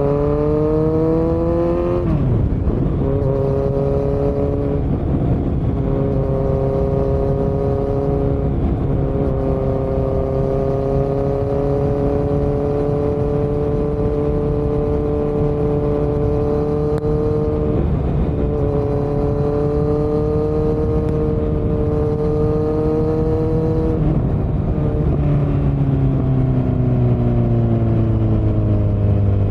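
2018 Kawasaki Z900's inline-four engine running through a Yoshimura muffler and Delkevic headers with no dB killer, heard from the saddle while riding. The revs climb in the first couple of seconds and the note breaks briefly a few times, then holds steady for long stretches. Over the last few seconds the revs fall away as the bike slows.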